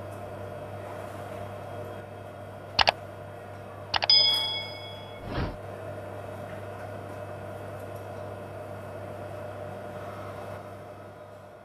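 Steady hum of commercial kitchen equipment. About three seconds in come two sharp clicks, then a few more clicks and a short metallic ding that rings for about a second, followed by a dull knock.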